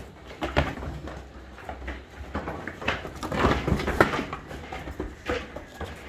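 Large goats moving and jostling on a wooden slatted floor: irregular knocks of hooves on the boards with scuffling, busiest about three to four and a half seconds in.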